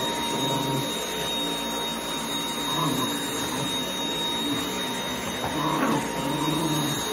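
Cordless stick vacuum cleaner running with a steady high whine as its cleaner head is pushed over carpet, with an uneven lower rumble that swells and fades under the whine.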